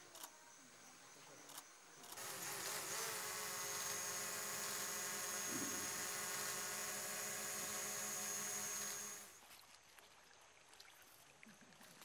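An insect buzzing steadily for about seven seconds. It starts about two seconds in as a high, even drone with a thin whistle-like tone on top, then fades out quickly near the nine-second mark.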